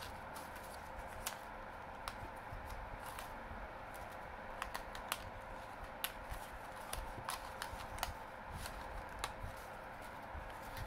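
Cardstock pieces being handled on a craft mat: scattered light clicks, taps and rustles of paper picked up and laid down, over a faint steady hum.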